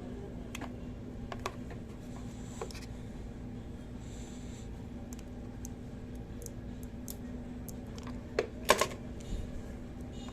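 Scattered light clicks and taps of small plastic parts being handled, with a louder quick cluster of clicks about eight and a half seconds in, over a steady electrical hum.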